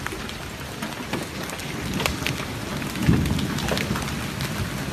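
Hail and heavy rain falling on a road and grass: a steady hiss dotted with sharp clicks of hailstones striking, with a louder low thump about three seconds in.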